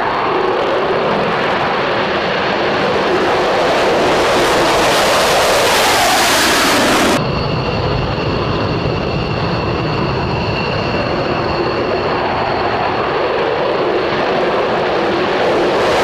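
Jet noise from an F-22 Raptor's twin turbofan engines at takeoff thrust: a loud, steady rush of noise with a faint high whine. About seven seconds in the sound changes abruptly, a cut to another takeoff recording.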